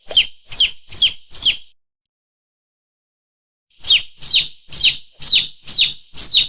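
Lure call for mongooses and monitor lizards: shrill bird-like squeaks, each falling sharply in pitch. Four come in quick succession, then after a pause of about two seconds a run of six more.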